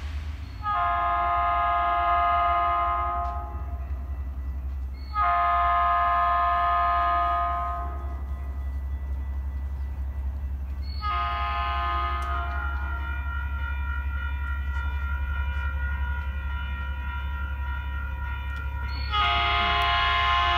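Horn of an approaching Metrolink commuter train sounding four long blasts, each a chord of several notes held together, with a steady low rumble of the oncoming train underneath.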